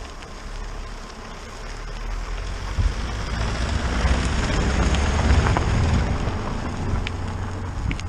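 A car creeping along a gravel track close by, its low engine rumble and tyres on gravel growing louder from about two seconds in, loudest around five seconds, then easing off. Wind buffets the microphone throughout.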